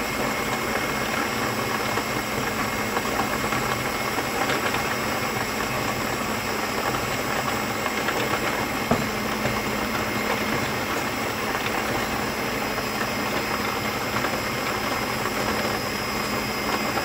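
Electric stand mixer running steadily, its balloon whisk beating egg whites into meringue. The motor gives an even hum with a faint steady whine on top.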